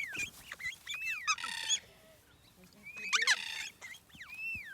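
Several cockatoos calling at close range: short repeated beep-booping chirps that arch up and down in pitch, with two harsher screeches, about a second and a half in and near three seconds in.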